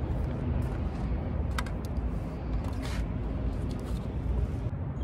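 Steady low rumble of wind buffeting a phone microphone outdoors, with two short knocks, one about a second and a half in and one about three seconds in.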